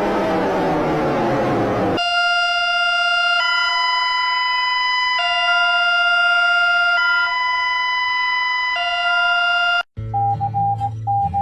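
Electronic emergency-alert alarm tones: a siren-like pitch glide falls away over the first two seconds, then a hi-lo alarm of two alternating electronic tones switches roughly every second and a half. It cuts out briefly near the end, and a different, broken-up beeping tone over a low hum takes over.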